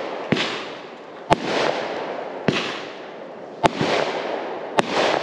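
Aerial fireworks going off overhead: five sharp bangs a little over a second apart, each trailed by a fading hiss.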